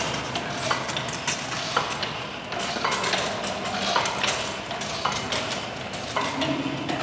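High-pressure water jet spraying a concrete wall, a steady hiss and spatter with irregular crackles, washing loosened dust off the ground surface to prepare it for crystalline waterproofing.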